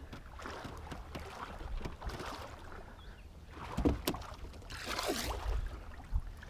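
Shallow water sloshing and splashing, with a brief louder splash about five seconds in.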